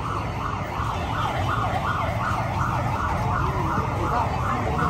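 A siren yelping fast, about three rising sweeps a second, over a low street rumble.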